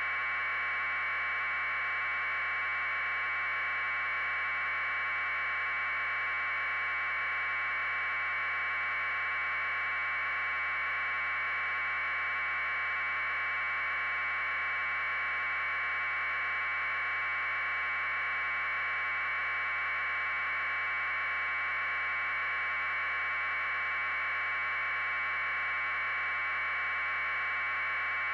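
Steady, unchanging electronic hiss confined to a narrow midrange band, like static on an empty audio channel, with no other sound on it.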